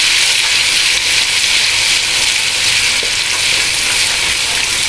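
Ginger-garlic and green chilli paste frying in hot oil in a karahi, a steady loud sizzle, stirred with a wooden spatula.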